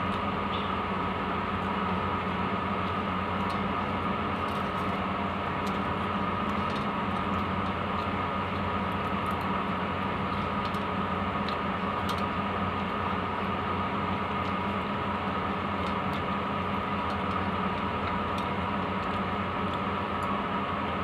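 A steady mechanical hum with a faint high whine, unchanging throughout, with a few faint clicks from hand-mixing rice in a steel bowl.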